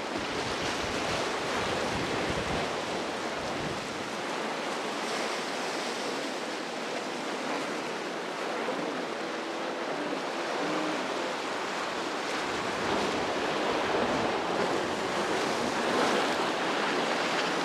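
Ocean surf washing and breaking in a steady rush, with a faint pitched hum a little past the middle.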